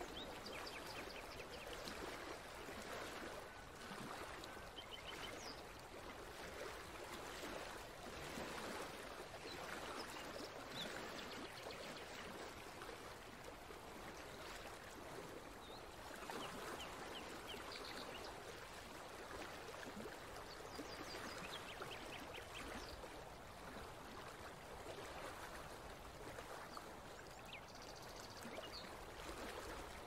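River water running steadily, with birds chirping briefly every few seconds over it.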